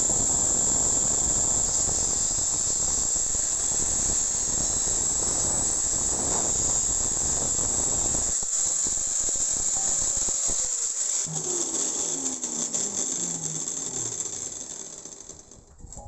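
Angle grinder with a thin cutting disc cutting through 4-inch square steel tubing: a steady high whine with rough grinding noise. Toward the end the cutting noise stops and the motor winds down, its pitch falling, until it fades out.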